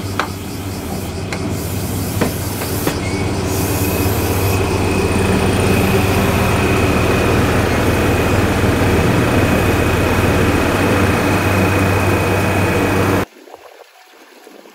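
JR Kyushu YC1 series hybrid diesel railcar running into the platform, its engine and traction equipment humming and growing louder as it draws alongside, with a few clicks of wheels over rail joints in the first couple of seconds. A high steady squeal comes in about three seconds in. The sound cuts off abruptly near the end to a much quieter outdoor background.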